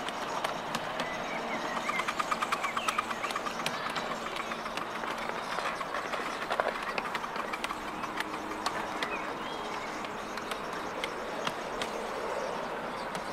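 A 7¼-inch gauge miniature railway train running along its track, its wheels clicking sharply and irregularly over the rails over a steady running noise. About two seconds in there is a short run of quicker, louder beats.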